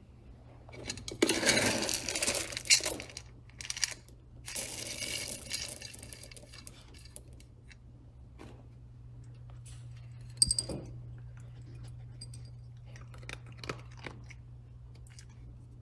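Dry dog kibble rattling in a clear plastic container as a plastic scoop digs through it, in two long spells near the start. Later a sharp click and then scattered small clicks as the dog eats kibble from a ceramic bowl.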